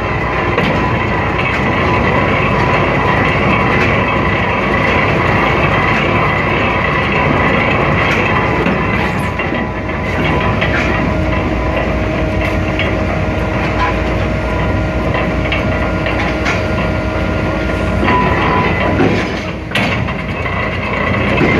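Ferry's bow mooring winch and deck machinery running: a steady mechanical rumble and clatter. A humming tone comes in about halfway through and stops a few seconds before the end.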